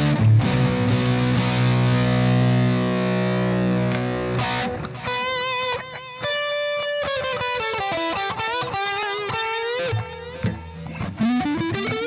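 J&D ST-Mini electric guitar played through a distorted amp tone: a chord rings out for about four seconds, then a single-note lead line follows with string bends and vibrato, ending on a bend up into a held note.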